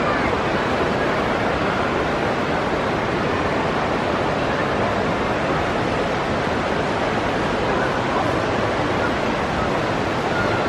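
Steady, even wash of indoor water-park ambience: distant crowd voices and splashing pool water blended together.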